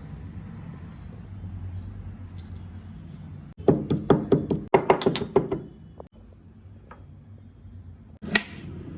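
A quick run of about ten sharp knocks or taps over two seconds, then a single knock near the end, over a low steady hum.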